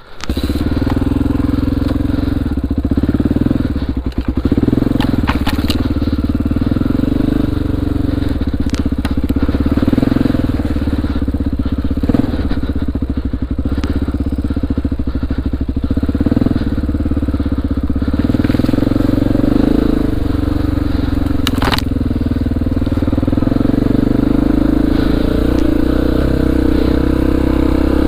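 Honda XR400R's air-cooled single-cylinder four-stroke engine running under way on a loose, snowy trail, its pitch shifting with the throttle, with a few sharp knocks from the bike.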